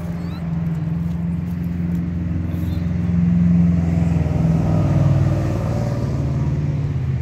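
A motor vehicle's engine running with a steady low drone that grows louder about three seconds in, its pitch shifting a second or so later.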